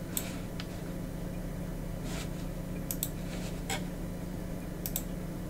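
Scattered faint clicks of a computer mouse over a steady low electrical hum.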